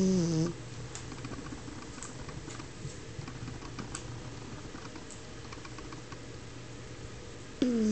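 French bulldog snoring: a loud pitched snore, dropping slightly in pitch, ends about half a second in, followed by quiet breathing with faint clicks for several seconds, and the next snore starts near the end.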